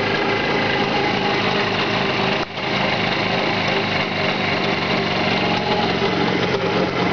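Jawa 638 two-stroke twin-cylinder engine running steadily on a test stand, with a brief drop in the sound about two and a half seconds in.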